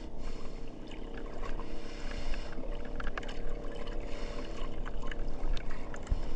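A small fishing boat's engine running steadily, with scattered sharp clicks and knocks from handling close by.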